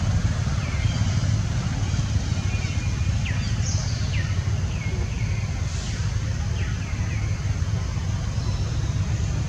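Outdoor background: a steady low rumble, with a few short, high, falling chirps scattered through the middle.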